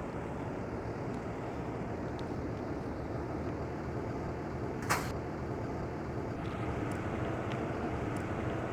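Steady outdoor street background of distant traffic, with a single sharp click about five seconds in.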